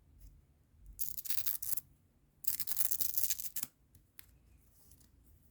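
Hook-and-loop strap on a keyboard's USB cable being ripped open in two rasping pulls, the second longer than the first.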